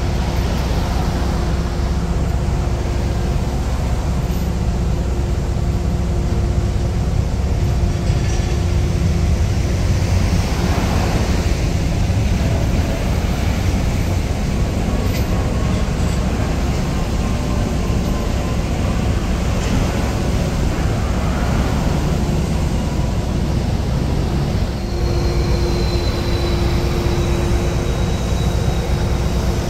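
Road traffic with a Canada Line SkyTrain passing on the elevated concrete guideway: a steady low rumble with a constant hum, and vehicles swishing past about a third and two thirds of the way through. Late on, a thin high whine sets in and slowly falls in pitch.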